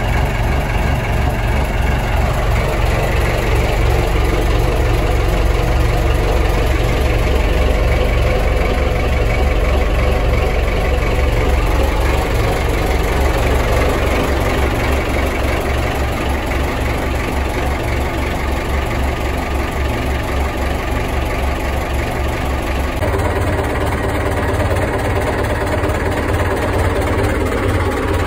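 Inboard boat engine idling steadily, heard close up in the engine compartment, with an even low pulsing beat.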